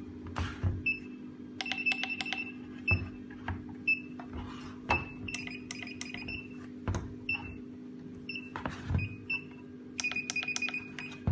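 Short high-pitched electronic beeps from solar wireless infrared beam detectors, some single and some in quick runs of several, mixed with sharp clicks of the units being handled and their buttons pressed: the detectors' beep prompt as the beams are switched on and aligned, with a steady low hum underneath.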